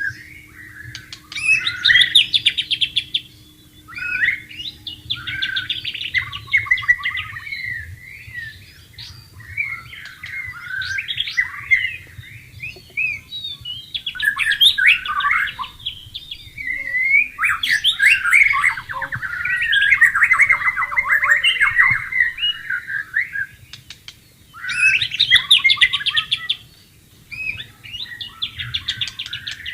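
White-rumped shama singing: varied phrases of rich whistles and rapid chattering notes, in bursts of a few seconds separated by short pauses.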